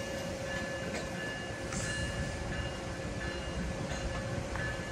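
Amtrak passenger train of Amfleet coaches moving slowly past, a steady rumble with faint high-pitched squeals coming and going and a short hiss about two seconds in.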